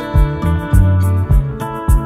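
Background music: plucked, guitar-like notes over a bass line and a steady beat of about two hits a second.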